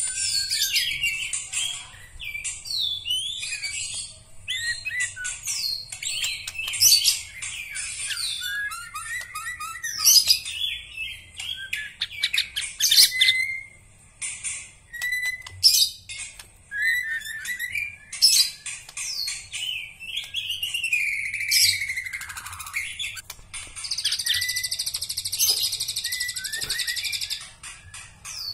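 White-rumped shama (murai batu), a black-legged bird, singing a long, varied song of whistled phrases, slurred notes and quick chatters. A harsh buzzing rattle lasts a few seconds near the end.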